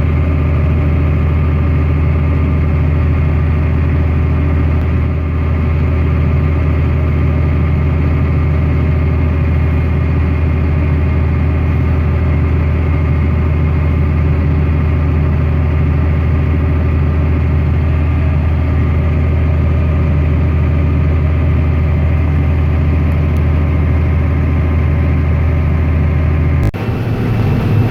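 8400 tractor's engine running at a steady speed while pulling a Killbros grain cart, a continuous deep drone. About a second before the end it cuts abruptly to a different, thinner engine hum.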